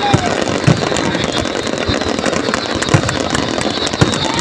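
Fireworks display: a dense continuous crackle with several sharp bangs a second or so apart, and short whistling glides.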